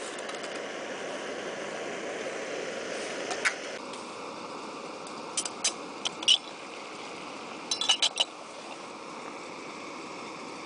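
Metal camp cookware clinking: a spoon on a steel mess tin and the lid of a small stainless-steel kettle being handled, in single sharp clinks and then a quick run of them about eight seconds in. A steady hiss lies under them and drops a little about four seconds in.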